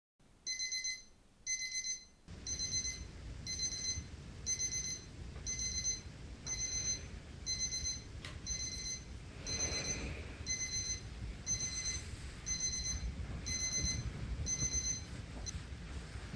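Electronic alarm beeping in short bursts about once a second, each burst a quick run of high beeps, stopping near the end. A steady low room rumble runs underneath from about two seconds in.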